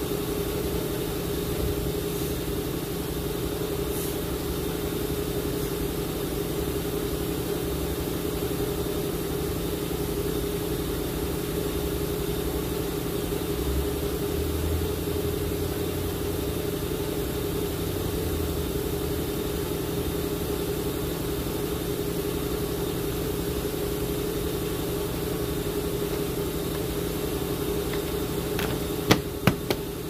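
Steady hum of a car engine idling. Near the end come three sharp plastic clicks as a dash trim panel snaps into place.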